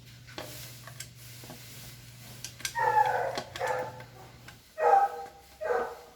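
A dog barking: four short barks in two pairs in the second half, over a low steady hum that stops about four and a half seconds in.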